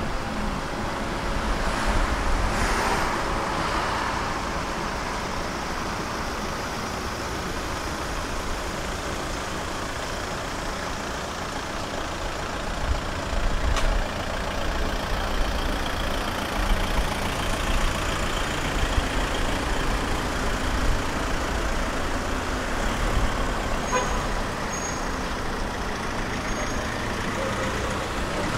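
Tram running on its rails: a steady low rumble of wheels and motor, with a single sharp knock about halfway through and some uneven clatter after it.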